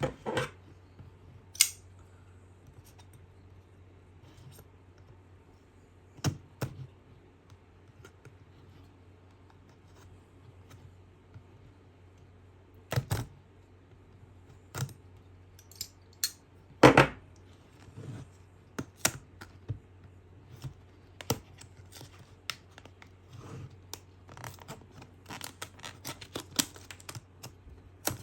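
A retail box and its packaging being opened and handled by hand: scattered knocks, clicks and scrapes, with two louder knocks about halfway through and quicker clicking near the end.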